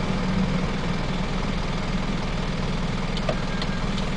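Toyota Dyna truck's engine idling with a steady, even low throb and no revving.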